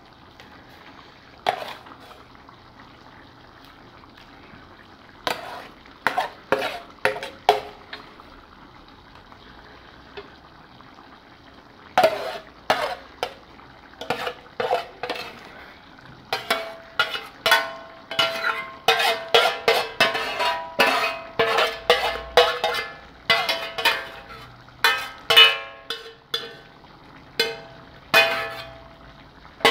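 Spoon scraping and knocking against an enamel frying pan while its cooked vegetable mixture is emptied into a pot. A few knocks early on, then from about halfway through rapid scraping strikes several times a second, each with a short metallic ring.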